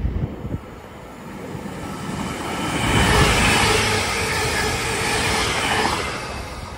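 A multiple-unit passenger train running through a station without stopping. Its noise builds over a couple of seconds, stays loud for about three seconds as the cars go by, then fades.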